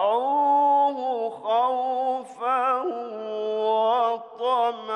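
A man reciting the Quran in melodic tajweed style. He draws out long, ornamented notes with a wavering pitch, and the phrases are broken by brief pauses for breath.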